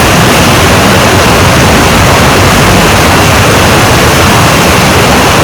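Steady, loud rush of a river and waterfall, an even wash of water noise.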